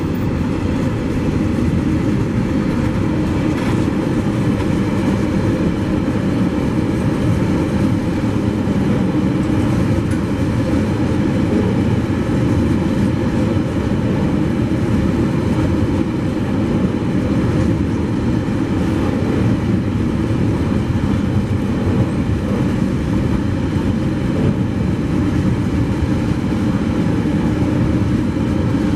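Empty container and log wagons of a freight train rolling steadily past on the rails, a continuous low rumble of wheels and wagons.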